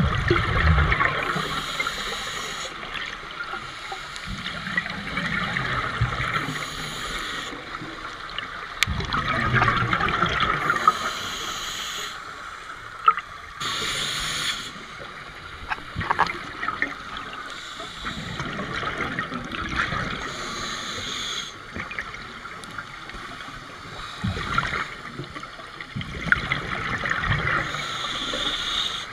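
Scuba breathing heard underwater: a regulator's hissing inhalations alternating with rushes of exhaled bubbles, in slow irregular cycles every few seconds.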